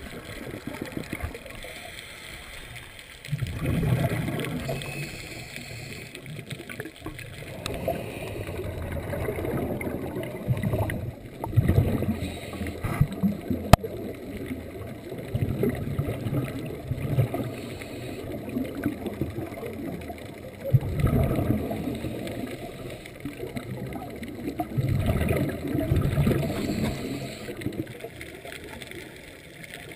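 Scuba regulator exhaust bubbles gurgling underwater, a burst with each exhalation every four to five seconds, heard muffled through a waterproof camera housing.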